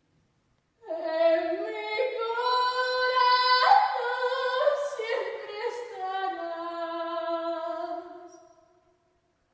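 A solo female voice singing unaccompanied: one long phrase that starts about a second in, swells, and fades out near the end.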